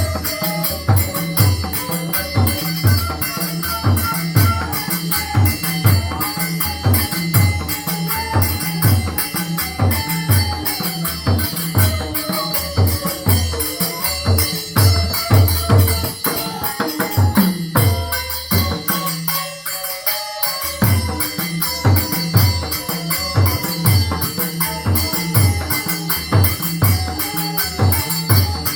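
Newar folk music: a bansuri bamboo flute melody over steady mridanga drum strokes, about two a second, with a high jingling percussion behind. The drum stops for about two seconds some eighteen seconds in, then comes back.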